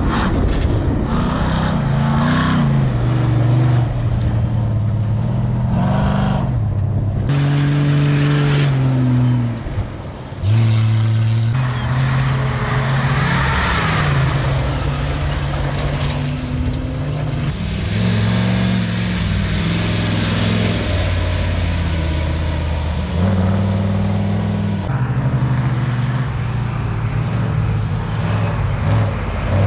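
Off-road race vehicles' engines revving hard, the pitch climbing and dropping again and again as they accelerate and back off. The sound dips briefly about ten seconds in.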